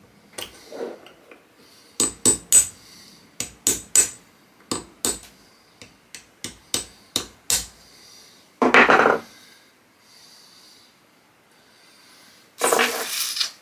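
Hammer tapping a punch against a Carcano rifle bolt clamped in a vise, trying to drive out its stuck extractor: about a dozen sharp metallic taps in quick little groups, then two longer, noisier sounds, one about nine seconds in and one near the end.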